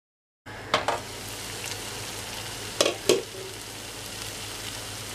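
Potato and onion masala sizzling gently in a non-stick pan, beginning after a brief silence. Sharp clinks about a second in and twice around three seconds in come from the pan's glass lid being lifted off and set down.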